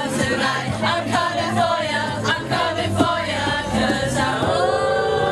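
A group of people singing together over music, several voices at once.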